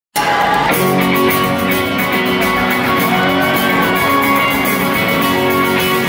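Rock band playing live, guitars prominent, heard from the audience in a large amphitheatre. The music starts abruptly right at the beginning and runs on at an even loudness.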